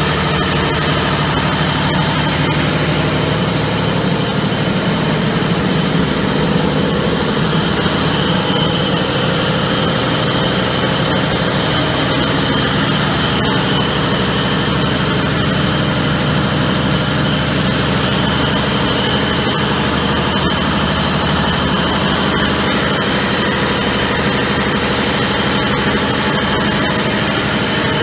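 GE Jenbacher J612 V12 natural-gas engine running steadily under about 60% load: a loud, even drone with steady high whines above it.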